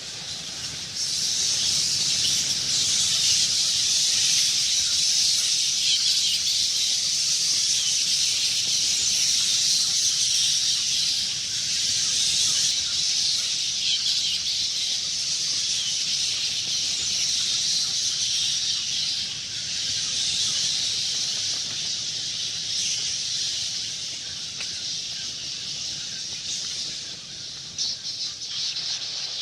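A swarm of bats chittering: a dense, unbroken high-pitched squeaking chatter over a faint low rumble, growing louder about a second in and easing a little near the end.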